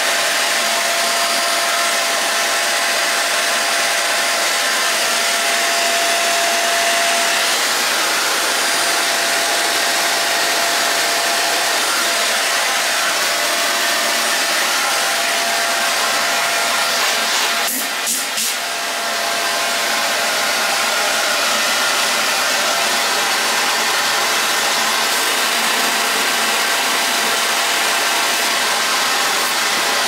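Deerma DX700 handheld stick vacuum cleaner's 600-watt motor running steadily, a loud rush of air with a steady whine; the strong suction and exhaust airflow are its normal running state. The sound dips briefly a little past halfway.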